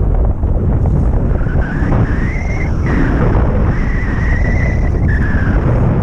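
Wind buffeting the microphone of a camera in flight: a loud, steady rushing. A thin whine rises about a second and a half in, holds, and fades out near the end.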